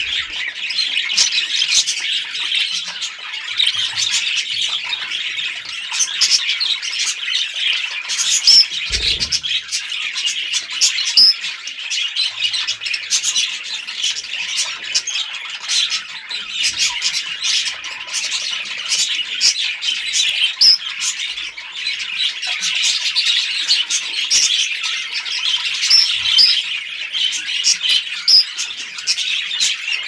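Budgerigars chattering: continuous warbling and chirps with sharper squawks scattered through, and a brief low thump about nine seconds in.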